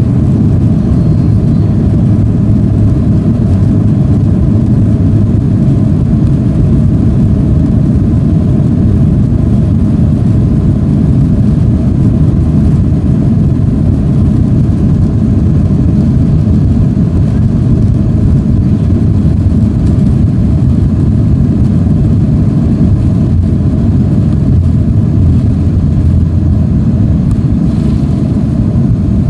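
Cabin noise of a Boeing 737 airliner on its takeoff roll, heard from inside the cabin. The jet engines at takeoff thrust and the runway rumble make a loud, steady, low roar.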